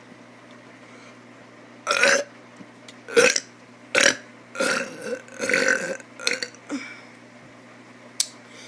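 A kid burping, a run of about six or seven short burps coming roughly a second apart, some longer and drawn out, from about two seconds in until near the end.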